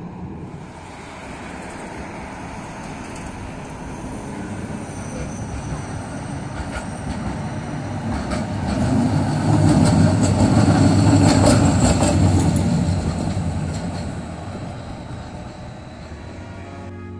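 Stadler Citylink tram-train passing on street tram track: its running noise swells to a peak about ten seconds in and fades as it moves away, with thin high whines and a few clicks around the loudest part.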